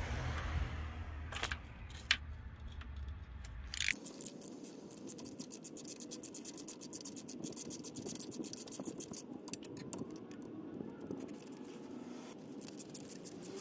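Socket ratchet on a long extension clicking in a fast, even run as it turns a 13 mm starter mounting bolt. It starts about four seconds in and stops near the end, after a few separate knocks of the tool being set on the bolt.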